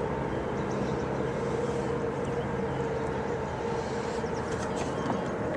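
A steady mechanical drone with a constant hum, like a distant motorboat engine. In the last second or so come small water splashes and drips as a small bass is let back into the lake beside the kayak.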